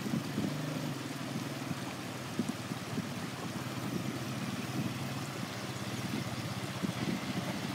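ATV engines running at low speed as quad bikes ride slowly along a dirt road, giving a steady low engine note.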